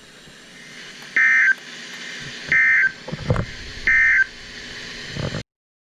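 Emergency Alert System end-of-message code from a weather-radio broadcast: three short, loud, buzzy data bursts about a second and a half apart over a hissy radio signal, marking the end of the warning. A low thump falls between the second and third burst, and the sound cuts off suddenly near the end.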